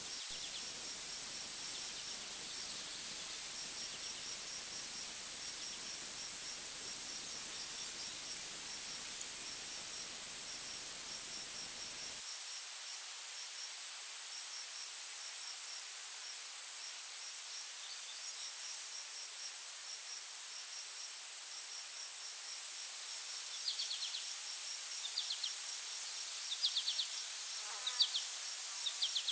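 Insects calling in a steady chorus: a continuous high-pitched drone with rapid pulsed cricket-like chirping beneath it. Several short bird chirps come in over it in the last few seconds.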